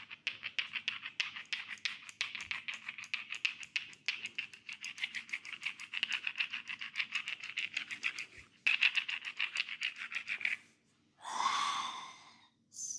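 Fast, even scratching strokes of fingers on hair and skin during a head and neck massage, about five to six a second, with a short break about eight seconds in. They stop near the end, followed by a longer rustling rub and a brief sharp click.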